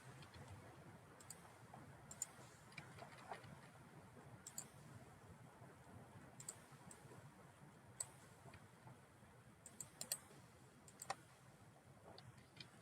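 Irregular, sharp clicks of a computer mouse, roughly one a second and unevenly spaced, over a faint steady hiss.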